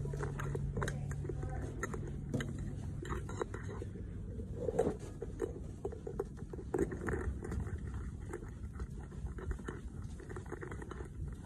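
Irregular rustling and small clicks of a phone being handled as it is carried through rooms. A low steady hum sits under it for the first three seconds or so.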